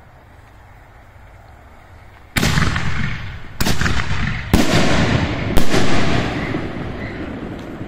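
Aerial fireworks going off: after a couple of seconds of faint background rumble, four loud bangs about a second apart, each trailing off in a long echo.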